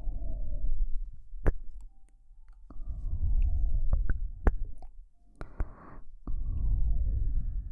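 Slow breathing right at the ears of a KU100 binaural dummy-head microphone: three long exhales, each sinking in pitch as it fades, with a short inhale before the last. Between the breaths come a few sharp kiss smacks.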